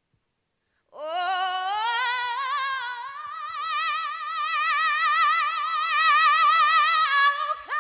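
A woman's solo gospel singing with no accompaniment: about a second in she slides up into a long, high, wordless note held with a wide vibrato, then moves to another held note near the end.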